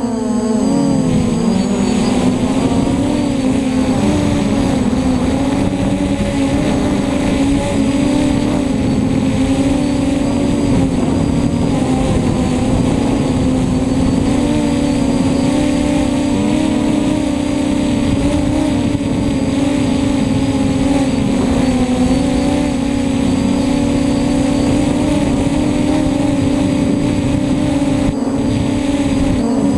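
Brushless motors and propellers of a scratch-built F330 quadcopter whining steadily in fast flight, heard from a camera mounted on the frame, the pitch wavering slightly with throttle changes.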